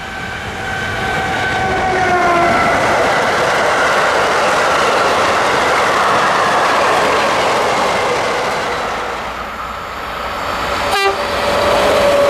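A train passing close by on the rails: a tone falling in pitch as it goes past, then several seconds of steady rolling and rattling noise from the wagons. Just after 11 seconds there is a sharp click, and a second passing train begins with another tone falling in pitch.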